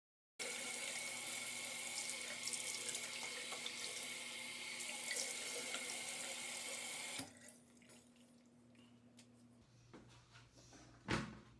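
Water running from a tap into a sink, with a steady hiss that stops abruptly about seven seconds in. A single short thump near the end.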